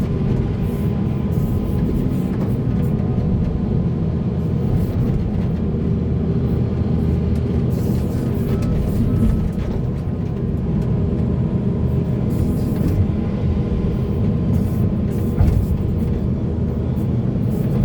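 Diesel engines of heavy earthmoving machinery, an excavator and articulated dump trucks, running steadily under load, with a few short knocks and scrapes on top.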